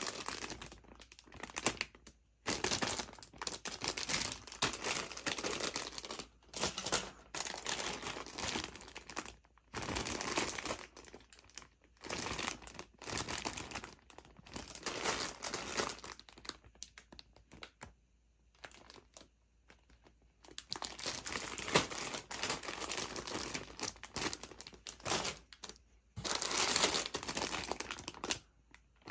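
Clear plastic bags holding plastic model-kit runners crinkling as they are handled and lifted out of the box, in irregular stretches with short pauses between.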